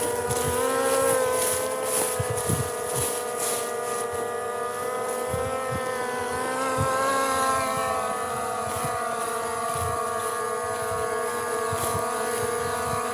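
Skydio 2 quadcopter drone flying close by, its propellers giving a steady multi-pitched whine whose pitch wavers slightly as the drone adjusts its speed.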